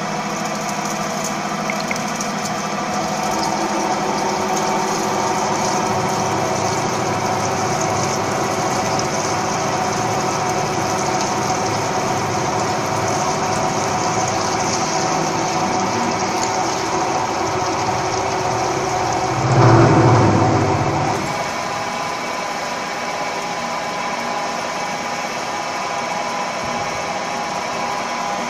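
CNC gantry drilling machine drilling a metal tube sheet: the spindle and cutting make a steady mechanical drone with several constant hums over it. About two-thirds of the way through a louder, lower surge lasts a second or two, then the steady running resumes.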